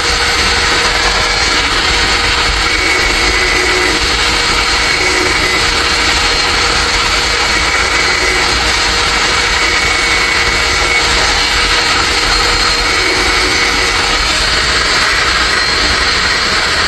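Electric grinder running steadily as it grinds down the face of a scooter brake pad, a continuous rushing noise with a faint steady whine. The pad is being resurfaced to stop the brakes squealing.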